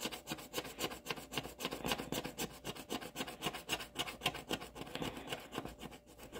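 A coin scraping rapidly back and forth over the scratch-off coating of a paper card, in a fast, even run of strokes, several a second.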